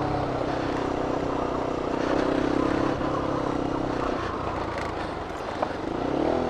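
Bajaj Pulsar RS200 single-cylinder motorcycle engine running at steady revs while the bike is ridden through soft, boggy ground, the note easing off about four seconds in.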